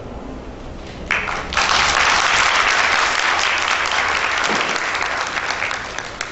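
Audience applauding, beginning about a second in and thinning out near the end.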